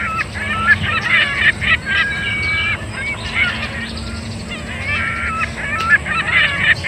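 Birds calling: bursts of chirping and short held notes that recur in a similar phrase, over a steady low hum.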